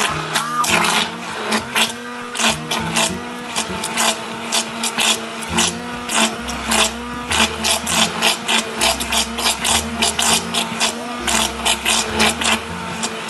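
Background music with a steady quick beat over a stepping bass line.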